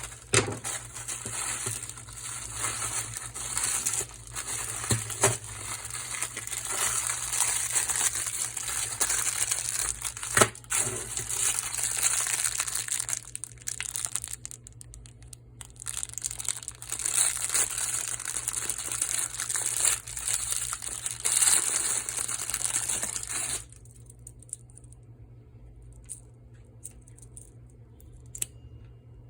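Plastic packaging crinkling and tearing in the hands, with scattered sharp clicks, as a keychain is unboxed. The rustling stops abruptly about three quarters of the way in, leaving only a few faint small clicks.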